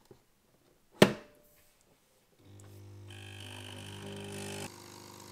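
Magimix Nespresso capsule coffee machine: its lever is snapped shut with one sharp click about a second in, then after a short pause the pump starts a steady hum as the coffee brews, growing fuller about three seconds in and dropping slightly near the end.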